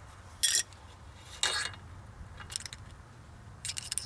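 Hand tools clinking against the steel ball joint shaft and nut as a wrench and hex key take the locking nut off: sharp metallic clinks about once a second, with a quick run of clinks near the end as a tool is set down among other tools.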